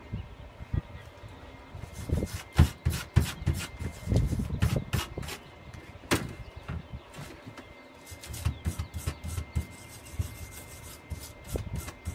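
Metal tools knocking and scraping on a freshly welded steel tube joint and the steel welding bench. The sharp knocks come irregularly in clusters, the busiest from about two to six seconds in and again near eight seconds.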